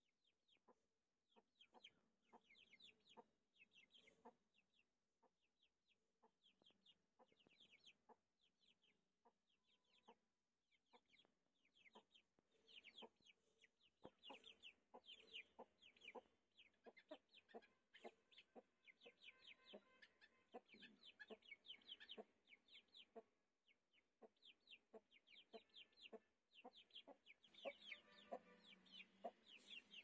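Young Aseel chickens peeping: faint, rapid runs of short, high, falling peeps, thickest around the middle and near the end, with a few lower clucks.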